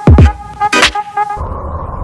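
Electronic music with heavy kick drums and a steady synth tone, which cuts off abruptly about a second and a half in. A steady low droning rumble with a faint high hum follows.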